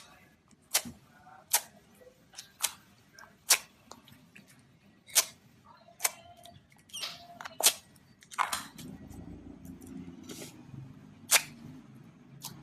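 Slime being poked and pressed by hand, making sharp, irregular pops and clicks about once a second. About two-thirds of the way in, a steadier low squelching noise joins as the slime is worked.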